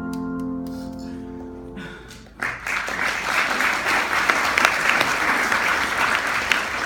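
The song's last note, held with its accompaniment, fades away. About two and a half seconds in, an audience breaks into applause that keeps up steadily.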